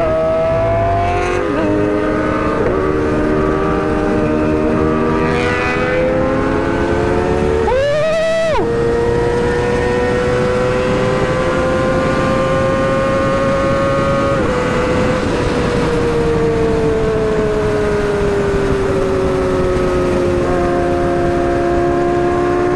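Sport motorcycle engine running at a steady throttle while riding, its pitch drifting slowly up and down, with a brief sharp rev rising and falling about eight seconds in.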